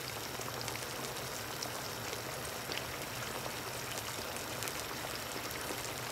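Pork spare ribs bubbling and sizzling in a pan of cooking-down sauce: a steady crackling hiss with many small pops.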